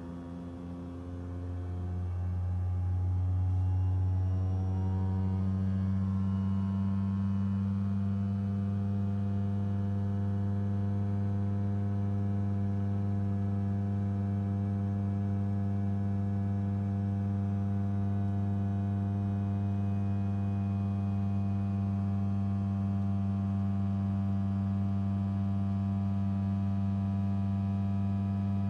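Rivian R1T cabin climate-control blower fan speeding up over the first few seconds, then running steadily with a strong low hum and a stack of higher whining tones.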